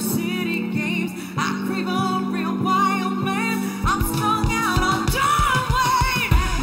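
Pop song with a singer over held low notes; a heavy, pounding beat comes in about four seconds in.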